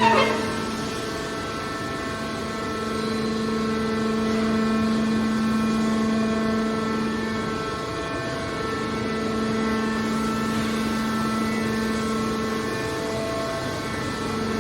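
Hydraulic car baler running, a steady droning machine hum.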